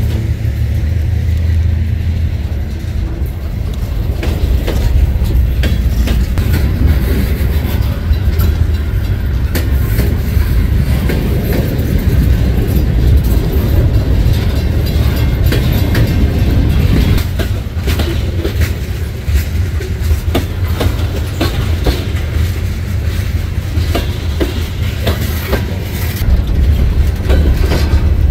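Freight train cars rolling steadily past. The steel wheels click over the rail joints again and again over a low, continuous rumble.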